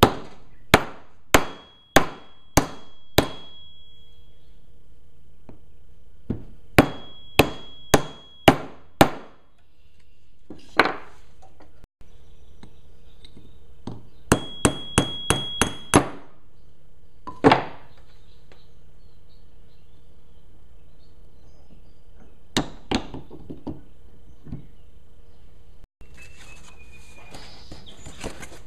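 Hammer blows on a wooden block and then a steel punch set on the end of a MerCruiser Alpha One drive shaft, driving the yoke shaft out of its gear and bearing stack. The sharp strikes come in quick runs of five or six with pauses between, several followed by a short metallic ring.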